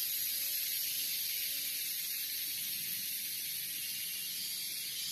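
Steady, high-pitched drone of a forest insect chorus.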